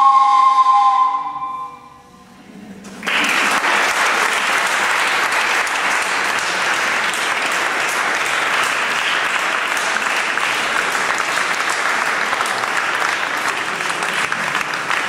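Two held notes from small handheld wind instruments die away about a second and a half in, then after a brief lull an audience applauds steadily.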